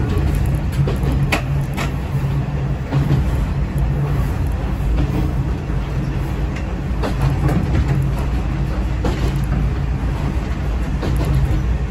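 Diesel railcar running along the line: a steady engine and running hum with scattered sharp clicks from the wheels over rail joints.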